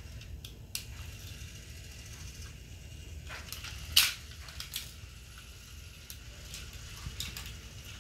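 Battery-powered toy trains on wooden track: scattered clicks and clacks of the plastic cars knocking and coupling on the wooden rails, the loudest a sharp clack about four seconds in, over a faint steady motor whir.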